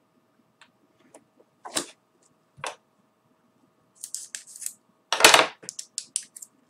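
Small clicks and knocks of objects being handled on a wooden table, with a louder clatter about five seconds in as a pair of scissors and a knife are set down, followed by a few more light clicks.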